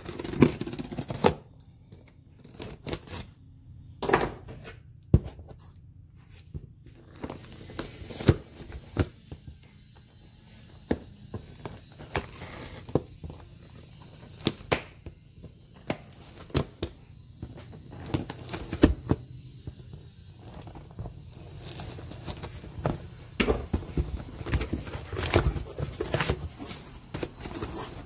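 A cardboard shipping box being cut and torn open with a utility knife: irregular scraping, sharp clicks and tearing of cardboard and tape. Near the end comes the crinkling of crumpled kraft-paper packing.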